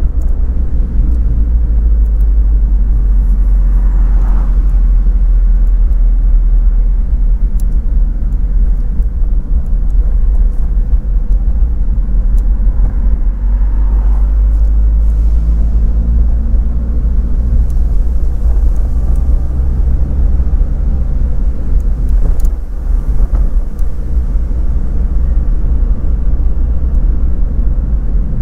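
Daihatsu Copen driving along at a steady pace, heard from the car: an unbroken low rumble of engine, road and wind noise.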